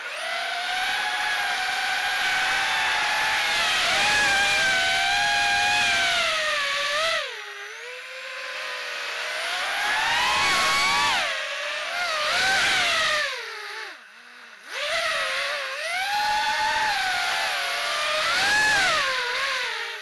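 Four Sunnysky X2204S brushless motors on a 5-inch racing quadcopter spinning HQ 5x4x3 three-blade props, whining in several pitches that rise and fall together with the throttle, with rushing air under the loud passages. The pitch and level drop sharply about seven seconds in and again around fourteen seconds, where the throttle is chopped, then climb back.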